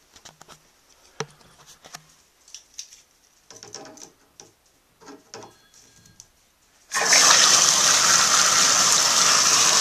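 A few small clicks and knocks of handling, then about seven seconds in water comes on suddenly and rushes out steadily through the newly installed valve.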